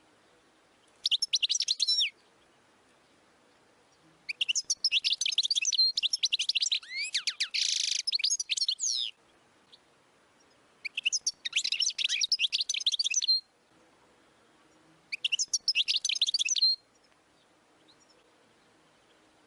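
European goldfinch singing: four bursts of fast, tinkling, twittering song made of quick rising and falling notes, separated by short pauses. The second burst is the longest, about five seconds, with a harsh buzzy note near its end.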